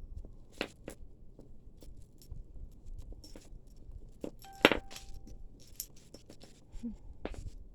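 Costume jewelry clinking and rattling as tangled necklaces are handled. Scattered light clicks, with one sharp, louder clink about four and a half seconds in that rings briefly.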